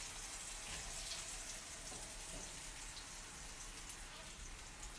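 Food sizzling in a frying pan: a steady, faint hiss, with a light click or two near the end.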